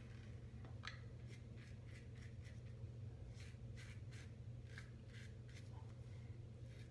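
Feather AS-D2 stainless safety razor with a Feather blade scraping through lathered stubble, cutting against the grain in quick short strokes: a run of faint crisp rasps. A steady low hum sits under them.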